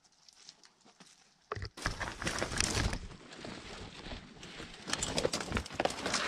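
Dry brush scraping and twigs crackling as a person pushes and climbs through scrub on a rocky slope, with scuffing footsteps and a low rumble. It starts suddenly about a second and a half in and keeps on densely.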